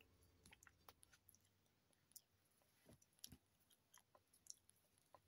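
Near silence, with a few faint, short clicks and ticks, such as from handling soft boiled bananas and their peels.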